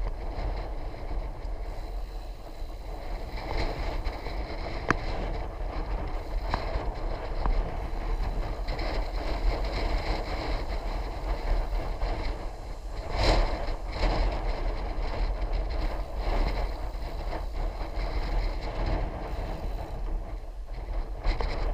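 Wind buffeting the microphone over steady road rumble during an electric bike ride, with a louder rush about 13 seconds in.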